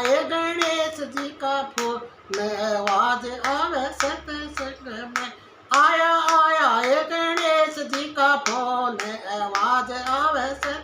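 A Haryanvi devotional bhajan sung with hand-clapping in time.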